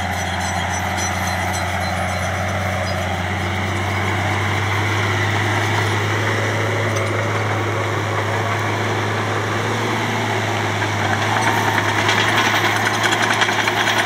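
Crawler bulldozer's diesel engine running at a steady pitch as a continuous low drone. It grows a little louder and rougher near the end.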